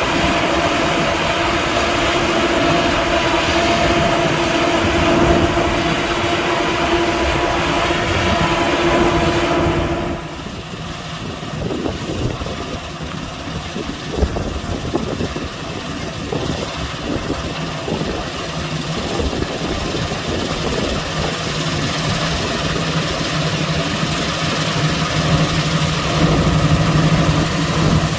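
Claas Lexion 540 combine harvester running while harvesting wheat, a steady machine din with held whining tones. About ten seconds in the sound changes abruptly and turns quieter, and a steady low hum grows near the end.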